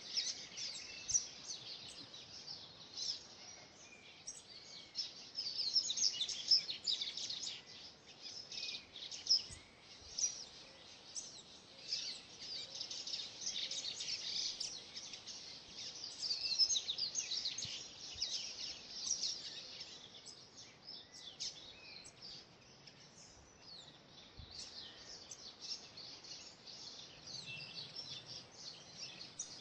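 Mixed birdsong from several species: a dense run of quick, high chirps and trills overlapping one another, thinning out for a few seconds past the middle before picking up again.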